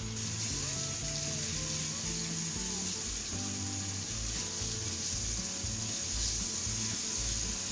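Minced meat and chopped onions sizzling steadily in hot oil in a wok as the keema is fried, with a spatula stirring through it. Low background music plays underneath.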